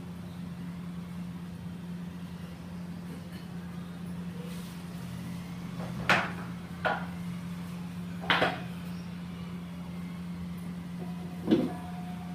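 A knife cutting the crust off a loaf of bread on a tray, with four sharp knocks from the blade and loaf striking the tray about halfway through and near the end. A steady low hum sits underneath.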